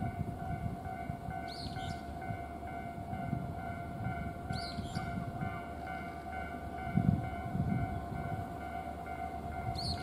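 Japanese level-crossing warning bell ringing steadily and repeatedly while a JR Kiha 40-series diesel railcar approaches, its engine and wheels a low rumble that swells about seven seconds in. A few short high chirps sound over it.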